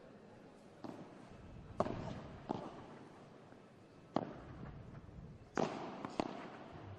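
Padel rally: the ball is struck by solid padel paddles and bounces off the court and glass walls, about six sharp knocks at an uneven pace, some ringing briefly in the arena.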